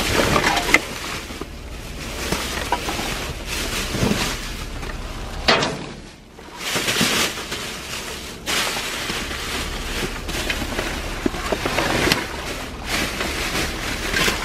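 Rustling and knocking of bags and discarded items being rummaged through, over a steady low rumble.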